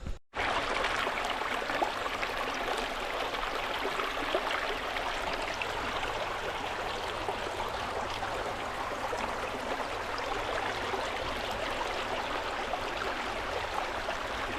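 Water of the High Force waterfall on the River Tees rushing in a steady, even noise that cuts in just after the start and cuts off abruptly near the end.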